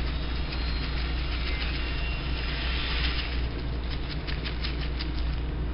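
A steady low hum throughout, with faint crinkling clicks of a plastic packet of grated coconut being shaken over a dish, clearest a little past the middle.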